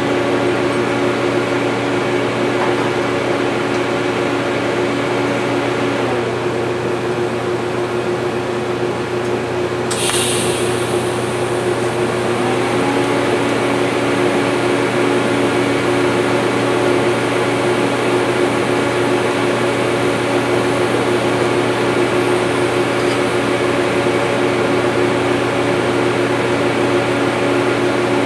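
Welding machine running with a steady electrical hum and a few fixed tones, and a higher hiss joining about ten seconds in.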